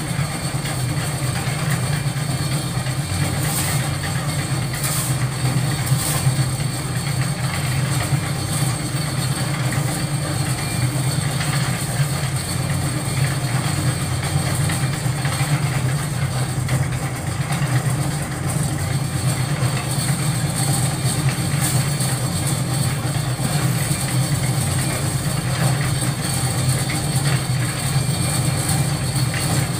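Concrete mixer's engine running steadily with a low drone as the drum turns. A few short shovel scrapes in sand and gravel come through about four to six seconds in.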